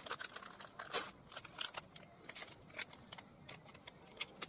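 Metal spoon clicking and scraping against an enamel bowl of flour while mixing: a run of light, irregular clicks.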